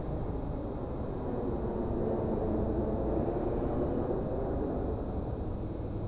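Synthetic city ambience of the Avengers Tower rooftop environment in Apple Vision Pro: a steady low rumble of distant city traffic. It swells for a few seconds about two seconds in.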